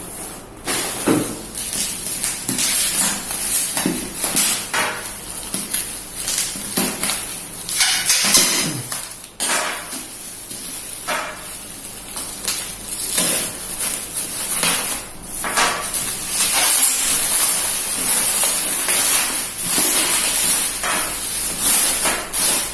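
Parcel packaging being cut and pulled open by hand: irregular rustling and crinkling of plastic wrap and cardboard, with short knocks and scrapes throughout.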